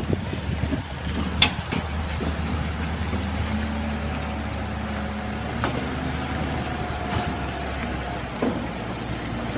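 Truck engine running steadily at low revs, with a sharp knock about one and a half seconds in and a few lighter knocks later.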